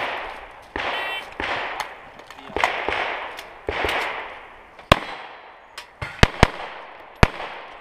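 A shot-timer beep about a second in, with duller, echoing gunshots from elsewhere on the range in the first half. Near the end, an STI Trojan pistol fires four sharp shots close by, the middle two in quick succession.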